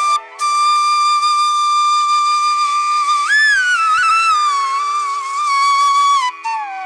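Background music: a solo flute melody. It holds one long note, bends up briefly about halfway through and settles back, then drops to a lower note near the end.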